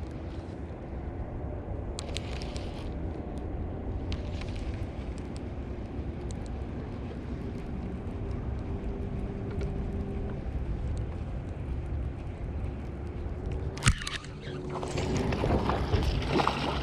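Steady low rumble from the boat with a faint hum. A sharp click comes about fourteen seconds in, then a loud noisy rush over the last two seconds.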